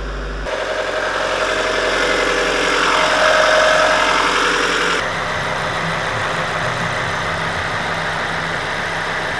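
NB Mazda Miata's 16-valve four-cylinder engine idling, heard from the open engine bay soon after start-up. The sound grows a little louder over the first few seconds, then changes abruptly about five seconds in to a steadier, lower idle.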